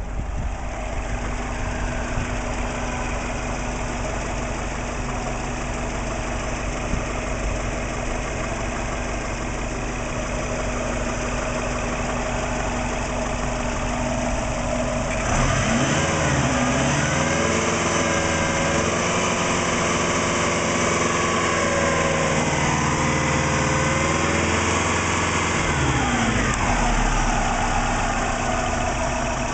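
Warmed-up car engine idling, with the ticking of the valvetrain and fuel injectors. About halfway through it is revved up and held at a higher speed for around ten seconds, then drops back to idle. No low knocking is heard: the owner's suspected piston slap seems to be gone.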